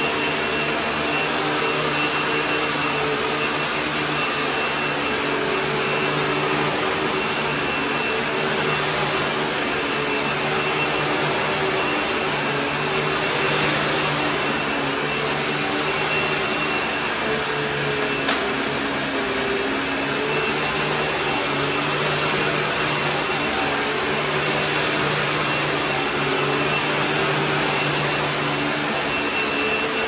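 Hoover Tempo WidePath upright vacuum cleaner running steadily while pushed back and forth over carpet, sucking up shredded paper, with a thin steady high whine over the rush of its motor and air.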